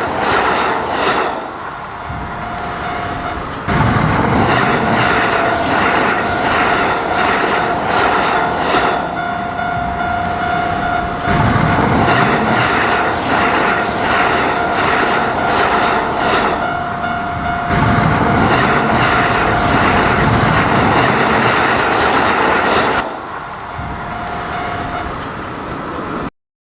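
Train running on rails, wheels clattering in a regular rhythm, with a steady whine over most of it. The loudness jumps abruptly several times, and the sound cuts off just before the end.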